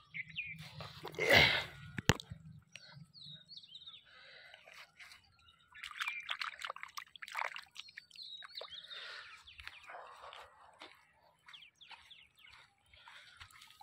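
Irrigation water from a hose trickling and dripping over a flooded vegetable bed, with a loud burst of noise about a second in. Birds chirp now and then.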